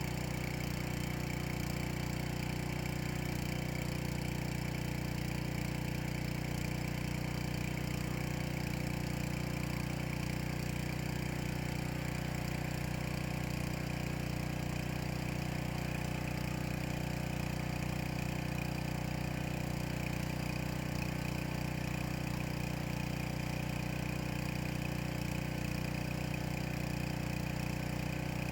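Small petrol engine of a gas pressure washer running steadily at a constant speed.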